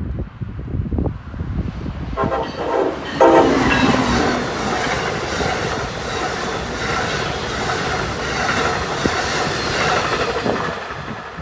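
Amtrak passenger train sounding its horn in two blasts about two and three seconds in, the second louder. Then the steady rush and clatter of its cars' wheels on the rails as it passes.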